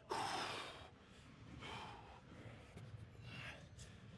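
A man breathing hard with forceful, gasping exhales, three in a row about a second and a half apart, the first the loudest, as he strains through barbell curl reps.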